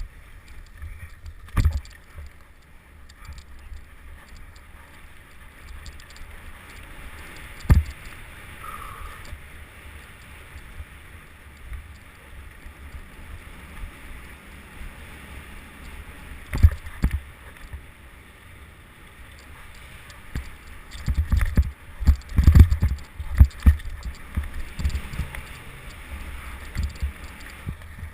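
Mountain bike riding fast over rough ground, with wind rumbling on the microphone and single hard knocks and rattles from bumps; the knocks come thick and fast for a few seconds about three quarters of the way through.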